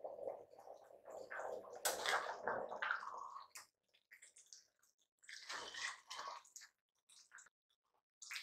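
Perforated ladle stirring rice through boiling, bubbling stock in an aluminium pressure cooker: wet squelching and sloshing in two bouts, the first longer, as the water cooks down into the rice.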